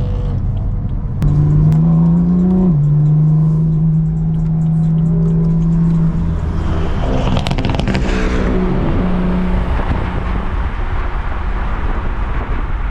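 Car engine under hard acceleration: it comes in loudly a little over a second in, and the revs climb and then drop sharply at a gear change. The engine then holds a steady pitch, followed by a loud rushing noise with falling revs.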